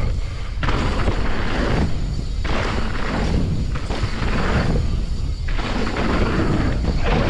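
Mountain bike riding heard through a chest-mounted GoPro: heavy wind rumble on the microphone with the hiss of tyres rolling over dirt and wooden boardwalk, surging and easing every second or two.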